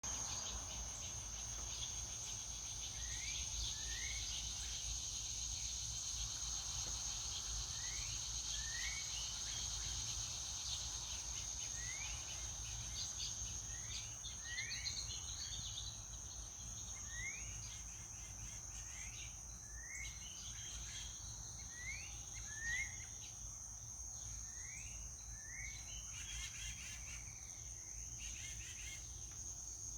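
Evening insect chorus: a steady high-pitched trill that never lets up, with short rising chirps repeating every second or so, often in pairs.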